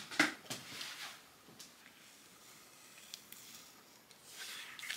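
Faint handling and rustling noises with a few light clicks, getting louder near the end.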